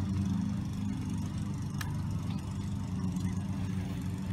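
Steady low mechanical hum of constant pitch, like an idling engine, with one sharp click about two seconds in.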